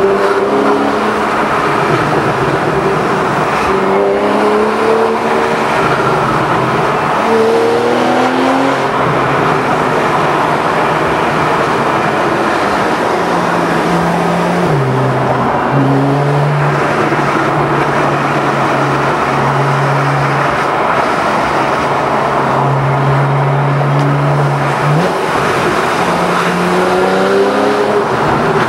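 Porsche 911 Carrera 4S flat-six with a sport exhaust, heard from the car. In the first half its pitch climbs and falls through several gear changes. It drops to a steady low note for about ten seconds in the middle, then climbs again near the end.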